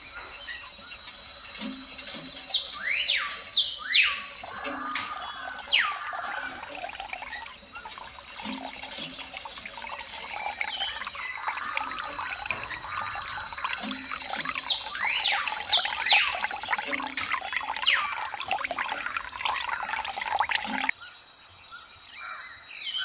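Water pouring from a miniature hand pump's spout and trickling down a small metal channel, with birds chirping in the background. The water sound stops shortly before the end.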